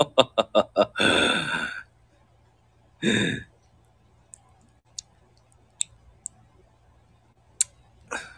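A man's voice: a quick run of laughter that trails off into a long sigh, then another short breathy sigh about three seconds in. A few faint, sharp clicks follow, spaced irregularly.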